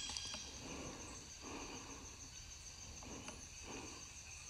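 Insects droning in several steady high-pitched tones, with footsteps rustling over the forest floor about once a second.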